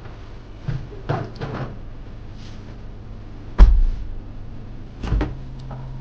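Glass-door drinks fridge being pulled open by its handle: a sharp thump as the door comes free, the loudest sound, then a second knock about a second and a half later. A steady low hum follows.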